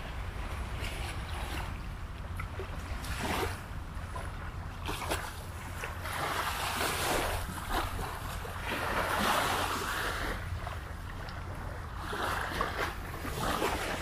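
Small waves lapping and washing onto a sandy shore, swelling in every few seconds, over a steady rumble of wind on the microphone.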